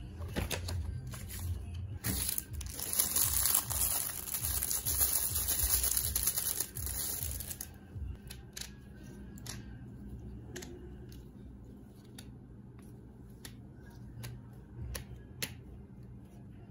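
Paper and plastic packaging crinkling and tearing loudly for several seconds as CD player parts are unwrapped. It gives way to scattered light clicks and knocks of hard plastic parts being handled.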